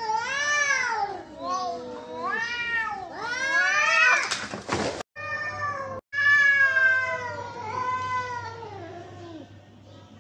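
Domestic cats yowling at each other in a fight standoff: long, wavering calls that rise and fall in pitch, with a short harsh hiss just after four seconds in. A long drawn-out yowl falls away in pitch near the end.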